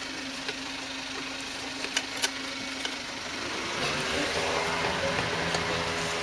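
A motor vehicle's engine idling steadily. About halfway through, a second engine note comes in, rising in pitch for about a second and then holding steady, and the sound grows louder. A few light metallic clicks are heard.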